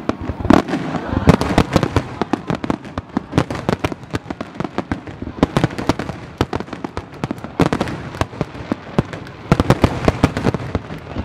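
Fireworks display in full barrage: aerial shells and low water-surface fireworks bursting in rapid overlapping bangs and crackle, several reports a second, with louder booms standing out at intervals.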